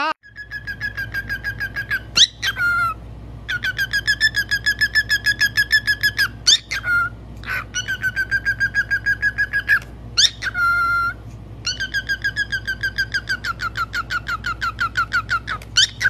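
Cockatiel whistling a repeated phrase: long runs of rapid chirps, about eight a second, each run ended by a quick rising whistle and a short note, four times over.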